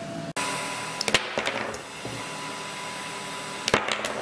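Sharp clicks and knocks of small hard parts being handled on a workbench, a few about a second in and a cluster near the end, over a faint steady hum.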